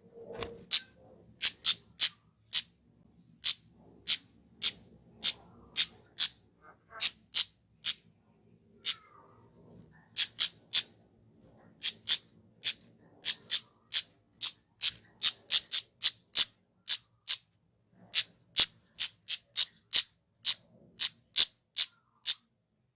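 Kemade, a small flowerpecker, giving sharp, high-pitched call notes in quick groups of two to four, repeated dozens of times with short pauses between groups.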